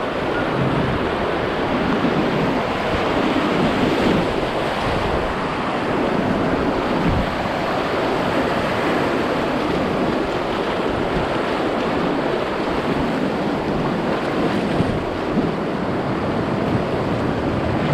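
Whitewater rapids rushing and splashing close around a kayak riding through them: a steady, loud wash of water.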